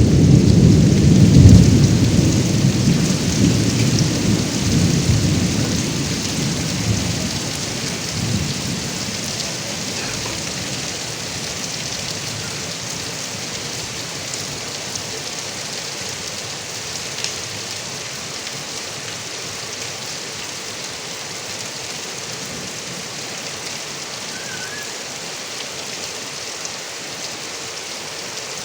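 Heavy rain falling steadily with a long rumble of thunder at the start that fades away over the first eight seconds or so, leaving an even hiss of rain.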